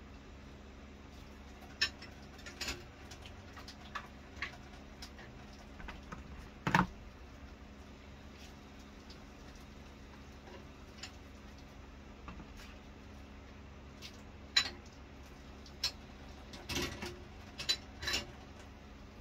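A kitten pawing and pushing at a plastic cat flap: irregular clicks, taps and rattles of the flap. The loudest knock comes about seven seconds in and a quick cluster comes near the end, over a faint steady hum.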